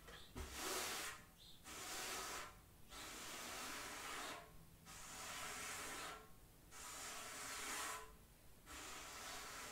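Hand percussion played in long, even swishes, about one every one and a half seconds.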